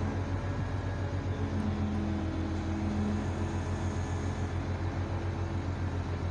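Crane engine running steadily, a low even drone, as the crane holds its lifting slings taut around a narrowboat's hull.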